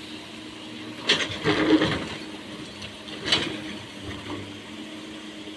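Mechanical clicking and rattling over a steady low hum: a burst of rattling clicks about a second in, then a single sharp click a little after three seconds.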